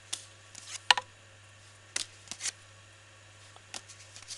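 Paper playing cards being laid down one after another onto a loose pile of cards, making a series of short slaps and flicks, about eight in all, the sharpest about a second in.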